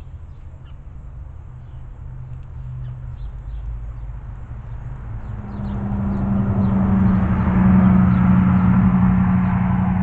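A low, buzzy motor hum swells up from about halfway through and then holds loud and steady. Faint short chirps from sparrows at the feeder sound through it.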